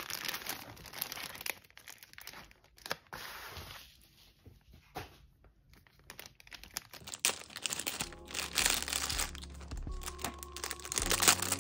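Clear plastic zip-top bags holding acrylic stamp blocks crinkling and rustling as they are handled and opened. The crinkling comes in dense bursts at first, thins out in the middle, and picks up again over the last few seconds.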